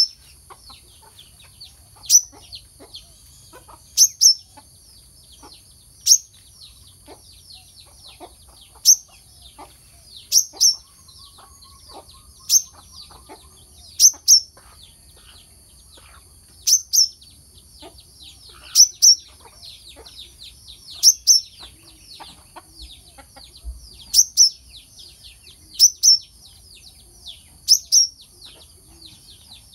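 Brown-throated sunbird (kelicap mayang kelapa) giving sharp, high chip calls, singly or in quick pairs, about every two seconds, over a steady high-pitched whine.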